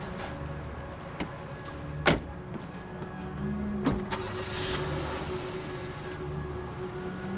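Car door slammed shut about two seconds in, with a second door thump just before four seconds, over a low steady hum.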